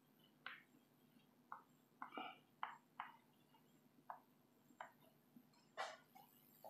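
Chalk writing on a blackboard: about ten faint, short taps and scrapes of the chalk stick, spaced irregularly, with a slightly longer scrape near the end.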